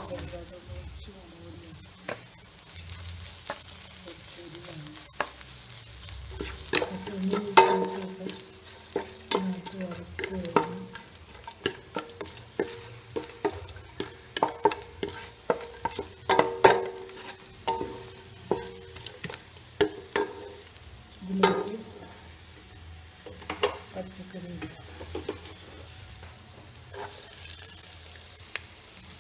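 Food sizzling in hot oil in a nonstick frying pan while a wooden spatula stirs and scrapes, with many sharp knocks of the spatula against the pan. Chopped vegetables are stir-fried, then cashews and raisins fry as the vegetables are pushed in.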